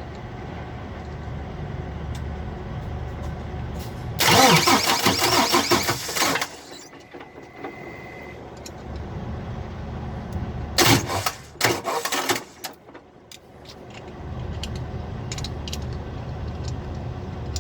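Freightliner Cascadia diesel starter cranking in bursts as a screwdriver jumps the starter solenoid terminals: one loud crank of about two seconds, then two short ones a few seconds later, without the engine catching. A steady low engine hum runs underneath.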